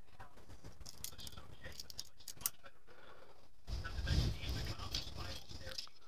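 Light clicks, ticks and rattles of a plastic PC case fan and its screws being handled and fitted against the case, with a sharper click about two and a half seconds in and a louder rustle and bump a little under four seconds in.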